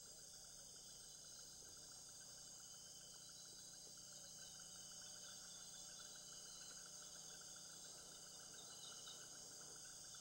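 Faint, steady insect chorus with a fine rapid trill, like crickets in the forest, under near silence.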